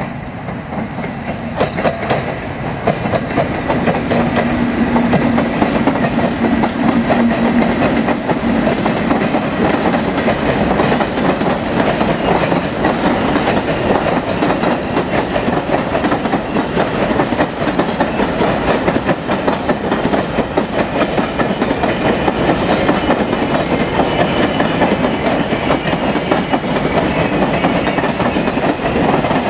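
Ballast train passing close by: the diesel locomotive goes by first, with a steady engine hum in the first several seconds. Then comes the continuous rumble and rapid clickety-clack of the hopper wagons' wheels on the rails.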